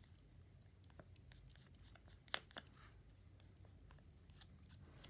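Near silence, with faint scratches and light clicks from a gold highlighter marker rubbed along the edge of a cardstock angel cutout. One sharper click comes about two and a half seconds in.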